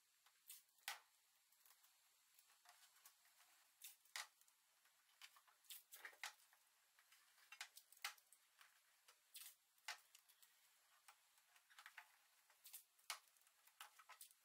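Faint, irregular clicks and short crackles of blue masking tape being pulled from the roll and pressed down around a car headlight, with hands brushing over the plastic lens and paintwork.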